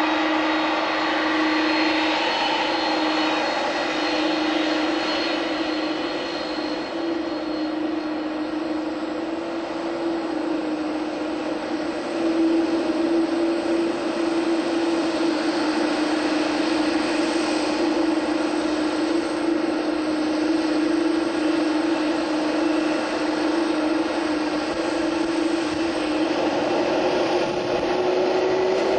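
Airbus A310-304's General Electric CF6-80C2 turbofans running at taxi thrust: a steady jet whine with a strong humming tone, its pitch rising slightly near the end.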